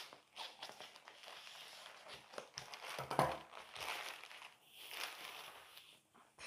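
Packaging being handled and opened by hand: irregular crinkling and rustling with small clicks and knocks, loudest about three seconds in.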